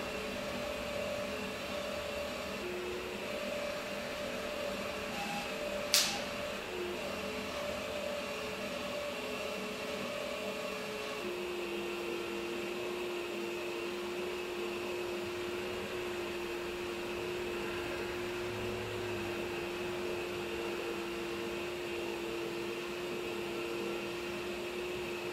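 Cordless drill driving a Lil Buddy Mongoose windshield cut-out winder, its motor running steadily as it winds the cutting string through the windshield's urethane. Its pitch drops about halfway through and then holds steady. One sharp click about six seconds in.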